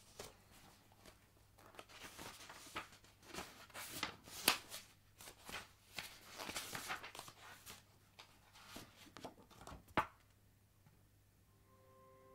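Paper rustling and crackling as a notebook is opened and its pages and a photograph are handled, in irregular rustles with sharper snaps about four and a half and ten seconds in. A low steady hum lies underneath.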